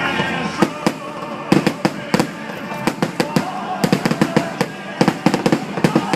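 Fireworks going off in rapid, irregular runs of sharp cracks and pops, heaviest in clusters about a second and a half in, around four seconds in and again near the end.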